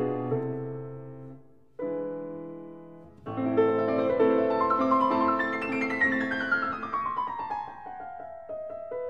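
Background piano music: a chord that dies away, a fresh chord about two seconds in, then a long run of notes stepping downward in pitch.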